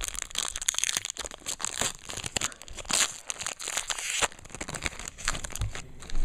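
A trading-card pack wrapper crinkling and tearing as it is opened by hand, a dense run of irregular crackles with louder rips about three and four seconds in.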